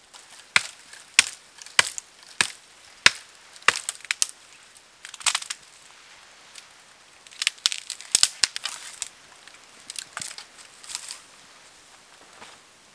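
Dry dead conifer branches cracking and snapping as they are struck and broken off a tree. Sharp cracks come at an even pace, about one every half-second, for the first four seconds, then a quick cluster of snaps around eight seconds in and a few more after.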